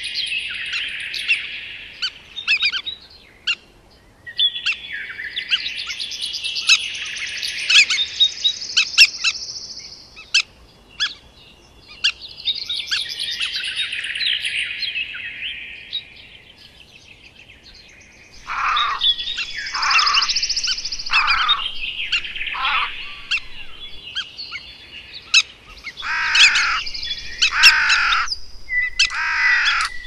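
Forest birds singing in bouts of fast, high chirping with short pauses between, and sharp clicks among them. From the middle on, loud calls slide downward in pitch, several times.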